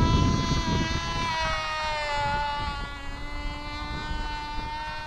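Cox RR1 .049 rear rotary induction glow engine running flat out on a model plane in flight, a steady high-pitched buzz, running a little rich. Its pitch sags slightly about a second and a half in, then holds steady.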